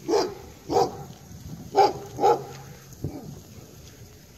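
A dog barking: four short barks in the first two and a half seconds, then a fainter fifth about three seconds in.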